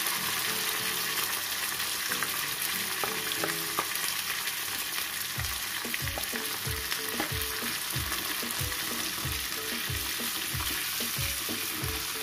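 Sliced onions and curry leaves sizzling in hot oil in a kadai, sautéing for a tempering, with a wooden spatula stirring them. From about halfway through, the stirring strokes come in a steady rhythm of about two a second.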